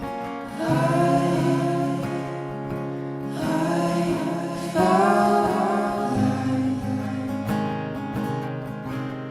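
Background song: a singing voice over strummed acoustic guitar.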